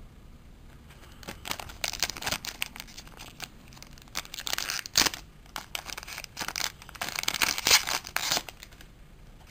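A card booster pack's wrapper being torn open and crinkled: a run of rustling, tearing bursts that starts about a second in, with the loudest crinkles in the middle and near the end.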